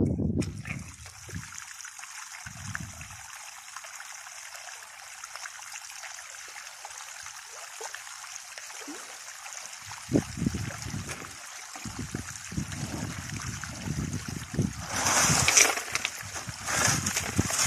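Water running down a self-built highbanker gold sluice and pouring off its end into a bucket: a steady trickling and splashing. Low rumbles come in from about ten seconds in, and the sound grows louder and more uneven in the last few seconds.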